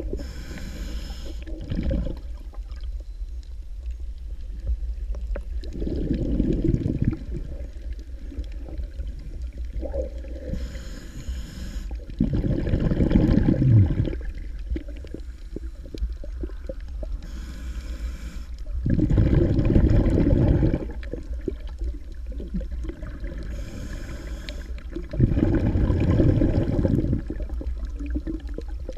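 A snorkeler breathing through the snorkel tube, heard through an underwater camera: about four slow breaths, each a short hissing inhale followed by a longer, louder low rush of exhaled air, over a steady low rumble of water.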